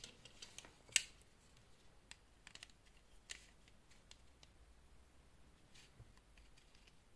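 Scattered small clicks and taps as a plastic digital caliper and a wristwatch are handled. The sharpest click comes about a second in, with a few more around three seconds in.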